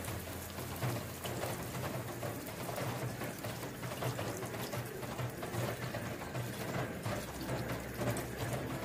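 Water pouring in a steady stream into a cooking pot of chopped banana blossom, splashing over the vegetables as the pot fills.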